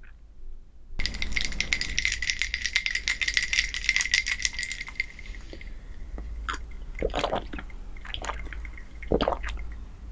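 Ice cubes rattling and clinking rapidly against a glass mug for several seconds, with a faint ringing of the glass. Then a few separate sips and swallows of the iced drink.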